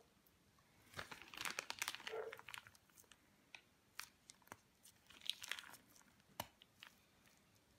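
Faint crinkling and rustling of a plastic piping bag being squeezed and handled while pistachio cream is piped into the colomba, with scattered light clicks and taps. It comes in two spells, about a second in and again past the middle.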